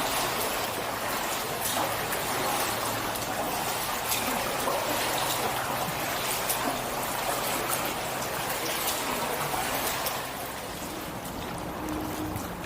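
Water trickling and splashing around a kayak as the paddle dips and drips, with many small splashes. It eases off slightly about ten seconds in.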